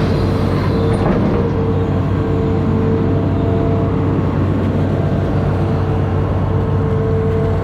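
Amphibious excavator's diesel engine running steadily at working speed, a loud low hum with a steady higher tone over it.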